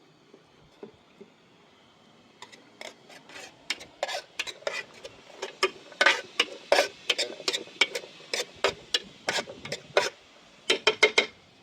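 A metal utensil clinking and scraping against cookware in a quick, irregular run of sharp knocks, starting a couple of seconds in and stopping just before the end.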